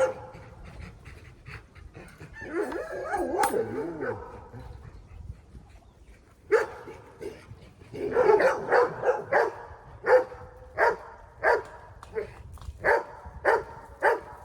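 Dog barking: a wavering, whiny call early on, then a run of short, sharp barks from about halfway through, coming roughly one a second.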